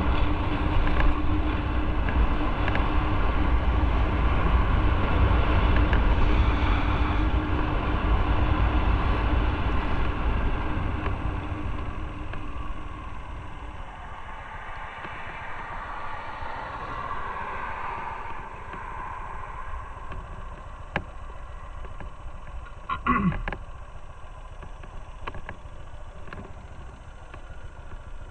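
Motorcycle riding at road speed, its engine running under heavy wind rush on the microphone, then slowing and easing to a much quieter low-speed run about halfway through. About two-thirds of the way through there is a short falling whine with a few clicks.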